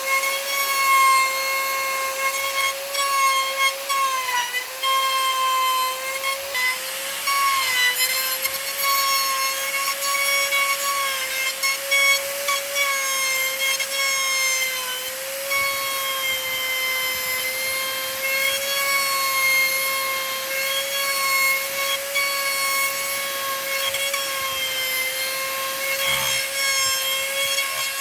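Electric power tool working wood: a steady motor whine with a haze of cutting noise, its pitch sagging briefly a few times as it bites in.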